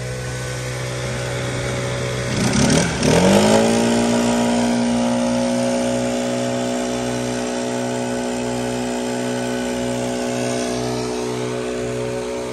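STIHL backpack leaf blower running with a steady engine note and a rush of air. About two to three seconds in, the pitch dips and then sweeps back up to a higher steady speed, which it holds.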